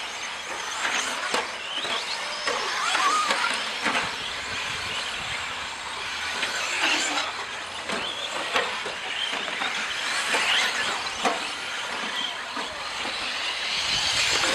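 A pack of electric 1/10-scale 4WD short course RC trucks racing on a dirt track: motors whining up and down in pitch as they accelerate and brake, over a steady hiss of tyres on dirt, with several sharp knocks.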